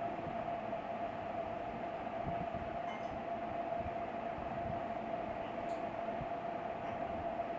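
Steady background hum: a constant mid-pitched tone over hiss and an uneven low rumble, unchanging throughout.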